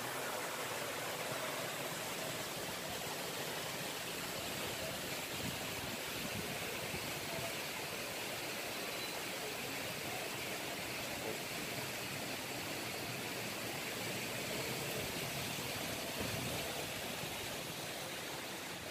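Steady rushing of water pouring from the pool's wall cascade, an even hiss with no breaks.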